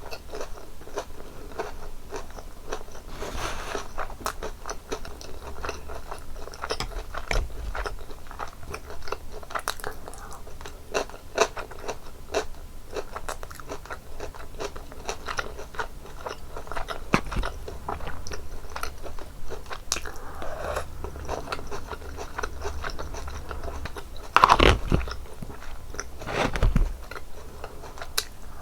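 Close-miked eating: teeth biting and chewing through the crisp breaded crust of a cheese pork cutlet, a steady run of small crackles. There are two louder crunches near the end.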